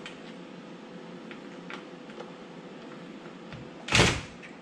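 Cordless drill being set against a dishwasher's mounting screw under the countertop: faint scattered clicks, then one short loud burst about four seconds in as the drill is run briefly on the screw.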